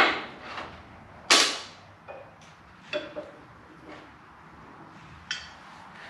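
Metal tools and parts clanking and knocking, a handful of sharp hits, some with a short ring. The loudest comes about a second in.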